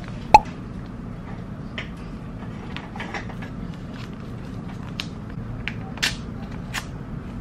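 A paper envelope being handled and slit open with a pen: scattered rustles, scratches and small tearing ticks, busiest about six seconds in. One sharp click with a short ring about a third of a second in is the loudest sound, over a steady low room hum.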